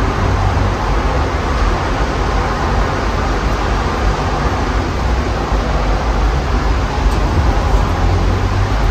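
Strong dust-storm wind blowing steadily and buffeting the microphone with a deep rumble, with highway traffic mixed in.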